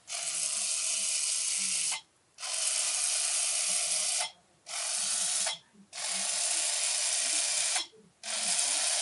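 Bee-Bot floor robot's small geared motors whirring as it carries out a programmed route step by step, with a short pause between moves: two forward steps of about two seconds each, a shorter turn on the spot of about a second, then two more forward steps.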